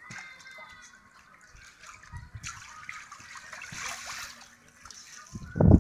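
Water sloshing and splashing against an inflatable water-walking ball as it rolls across a shallow pool, with a loud low thump near the end.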